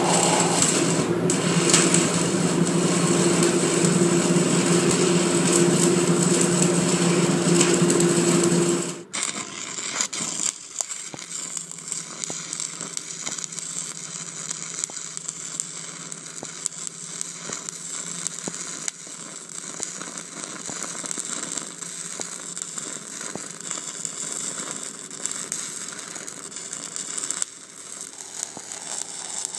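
Stick-welding arc burning a 1/8-inch 7018 electrode at about 120 amps on steel plate, crackling and sizzling steadily. For about the first nine seconds it is louder, with a steady hum under the crackle; then it drops abruptly to a quieter crackle for the rest.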